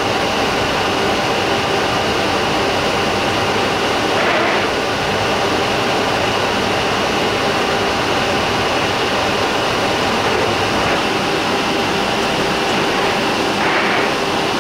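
Loud, steady cabin noise inside a running Isuzu bus: a drone with several steady whining tones through it, and two short hissy bursts, about four seconds in and near the end.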